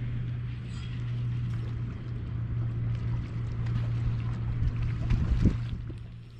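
A steady low engine hum, with faint scattered clicks in the second half and a louder low knock about five and a half seconds in.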